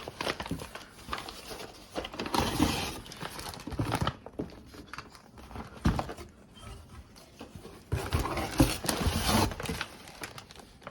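Plastic packaging rustling and crinkling as packaged meal-kit ingredients are handled and taken out of a cardboard box, in two longer bursts with scattered knocks.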